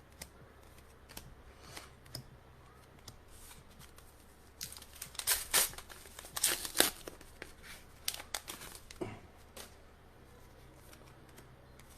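Trading card booster pack being torn open: a cluster of crinkly rips of the wrapper about five to seven seconds in, with light clicks and rustles of cards being handled before and after.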